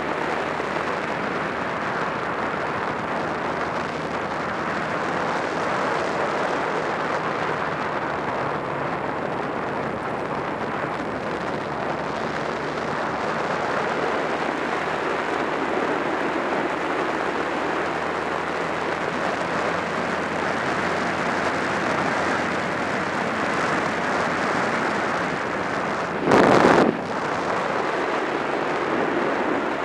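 Wind rushing over the microphone of a camera on a Honda Rebel 250 motorcycle while cruising, with the bike's parallel-twin engine running steadily underneath. Near the end a louder half-second rush of noise stands out.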